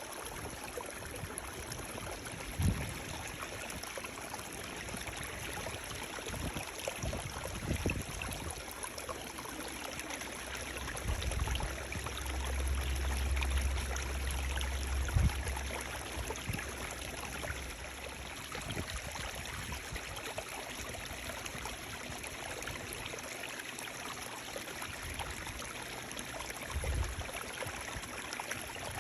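Running water, a steady even rush like a small stream. A few low thumps break in, and a low rumble swells for a few seconds around the middle.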